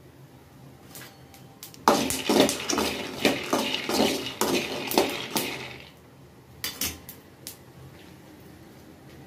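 Peanuts stirred with a metal slotted spoon in a metal kadhai: a dense rattling clatter of nuts and spoon scraping against the pan, starting about two seconds in and lasting about four seconds, followed by a few separate clinks.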